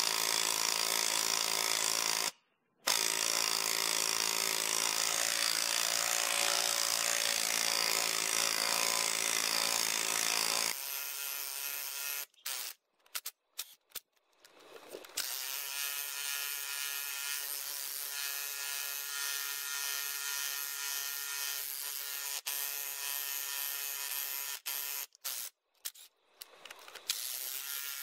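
Makita 18V brushless subcompact 3/8-inch impact wrench driving a wood auger bit into a tree trunk, running under load on high. It stops briefly about two seconds in, drops to a quieter steady run after about ten seconds, and is stopped and restarted several times in quick succession, twice.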